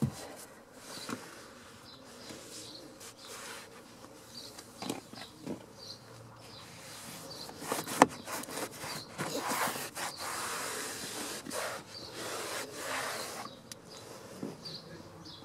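Cloth rubbing over a car's door sill trim, coming in spells of hissy wiping that grow busier in the second half, with one sharp click about eight seconds in.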